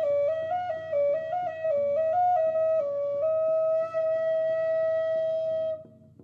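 Flute playing a melody of quick stepping notes, then one long held note that breaks off near the end.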